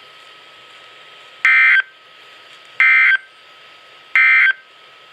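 Emergency Alert System End of Message: three short, identical bursts of digital SAME data tones about a second apart, signalling the close of the alert. A faint steady tone and hiss run underneath.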